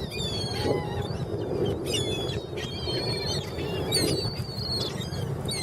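Seagulls calling, many short high cries overlapping and repeating, over a steady low rush of background noise.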